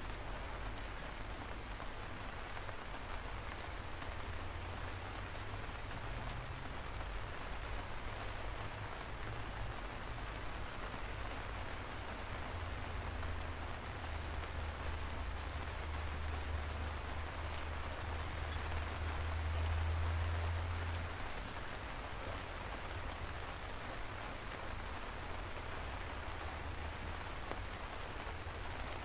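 Steady rain falling, an even hiss dotted with the ticks of single drops. A low rumble swells up about halfway through and fades again.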